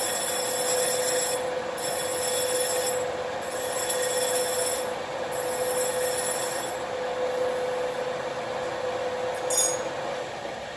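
Hand file scraping the edge of a metal tube spinning in an engine lathe, in strokes of about a second and a half with short breaks, over the lathe's steady running tone. Near the end there is a click and the lathe quiets.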